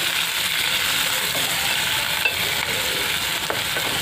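Sliced onions sizzling in hot oil in a metal pan, stirred with a wooden spatula, as they are fried until soft. A steady frying hiss with a few faint scrapes of the spatula on the pan.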